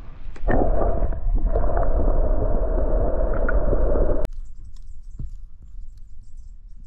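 Muffled rushing and gurgling of water heard with the camera held underwater. It is loud for about four seconds and then cuts off suddenly, leaving a faint hiss with a few light clicks.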